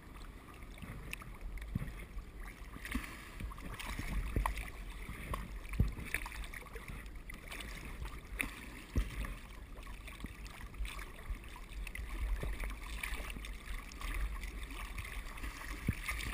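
Lake water sloshing and lapping around a camera held at the water's surface, with a low rumble and a few sharp knocks and splashes scattered through.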